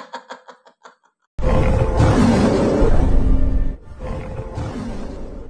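A sudden, loud film-style beast roar comes in about a second and a half in, over dramatic music. It breaks off briefly and then carries on more quietly, fading out near the end.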